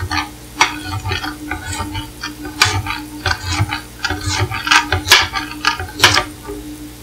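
Kitchen knife slicing a carrot on a cutting board: a run of irregular knocks as the blade meets the board, a few sharper than the rest.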